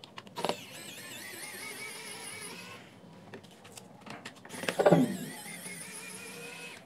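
Pen-style electric precision screwdriver's small motor whining in two spells with a wavering pitch as it backs out screws. Just before five seconds in, the JBL Pulse 2 speaker gives a loud falling tone, its power-off sound, as it shuts down because its switch is being pressed.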